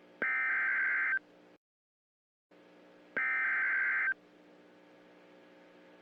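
Emergency Alert System SAME data header for a severe thunderstorm warning: two harsh, buzzy digital data bursts about a second long each, three seconds apart, with a faint steady hum between them.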